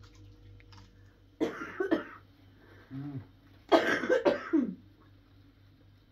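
A person coughing in two short fits about two seconds apart, each of several quick coughs, with a brief throat sound between them.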